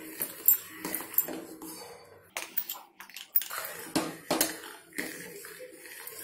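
Steel ladle clinking and scraping against a stainless steel pot while stirring custard paste into hot milk, with irregular taps and a short quieter pause partway through.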